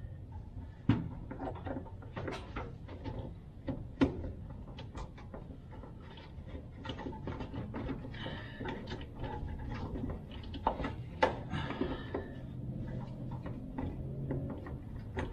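Scattered clicks and knocks of hands working fuel-line quick-connect clips and fittings under a van, with two sharper knocks about one and four seconds in, over a low background hum.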